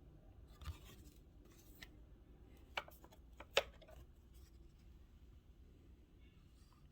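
Old cardboard-mounted photographs being handled: soft paper rustling and a few sharp taps, the loudest about three and a half seconds in.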